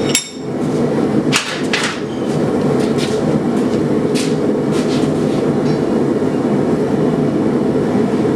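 Steady loud roar of a blacksmith's forge running. One ringing metal clang right at the start, then a few light metallic clinks over the next few seconds.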